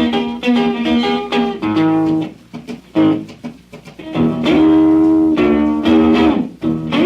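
Solo electric blues guitar playing a boogie: a fast repeated bass-string riff, then ringing chords and single-note licks with a pause in between. Played from a 1949 78 rpm record.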